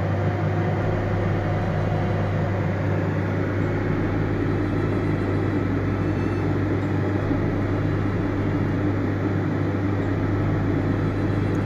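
Toyota Innova petrol engine running steadily at a raised speed of about 3000 rpm, held at the point past which it will not rev. The mechanic traces this to the mass airflow (MAF) sensor reading abnormally high.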